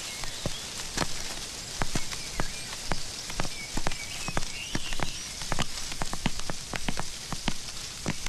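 Footsteps of several people walking across a hard floor: sharp, irregular steps, a few a second, over a steady background hiss.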